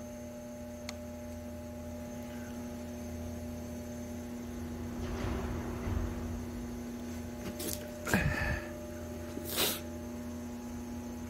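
A steady electrical hum, with a few short handling noises in the second half.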